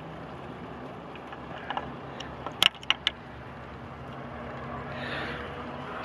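Steady hum of the Bobcat E50 mini excavator's diesel engine idling. About two and a half seconds in come three sharp metallic clinks in quick succession, a steel pry bar knocking against the track frame and idler.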